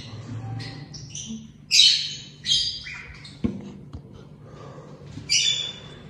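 Lovebirds giving about five short, harsh squawks, with a single knock near the middle as the stuck nest box is worked open.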